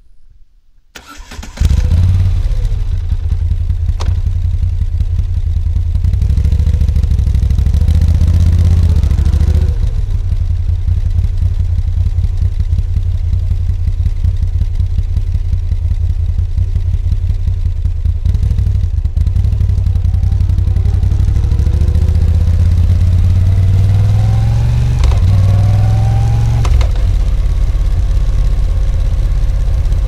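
A 2021 Moto Guzzi V7 Special's air-cooled transverse V-twin starts up about a second and a half in, then runs steadily. The revs rise briefly a few times, around ten seconds in and again near twenty-five seconds in.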